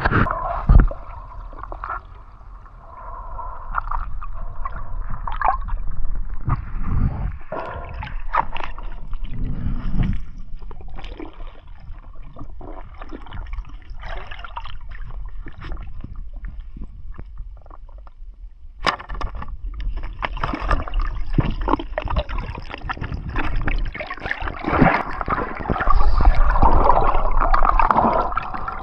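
Water sloshing and gurgling, with many irregular knocks and splashes, loudest near the end.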